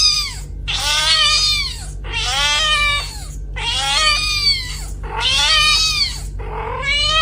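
A domestic cat meowing over and over: about five long, drawn-out meows in a row, each rising and then falling in pitch.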